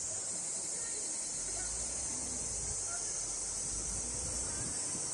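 A steady, high-pitched chorus of summer insects that does not change, with a faint low rumble underneath.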